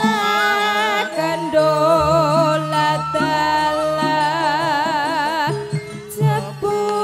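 Female Javanese sinden singing a slow, ornamented melody in gamelan music, her long held notes wavering with a wide vibrato, over low sustained accompanying tones. The sound dips briefly near the end.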